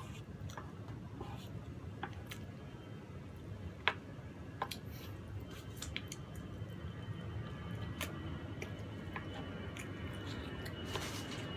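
Mukbang eating sounds: wooden spoons scooping soft cream cake and tapping the cake board in scattered sharp clicks, with chewing. The loudest click comes about four seconds in.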